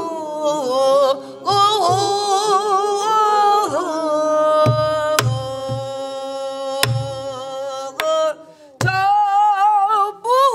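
Pansori singing in long held notes that waver and bend, accompanied on a buk barrel drum: a few low thumps on the drumhead and sharp cracks of the stick on the drum's wooden body.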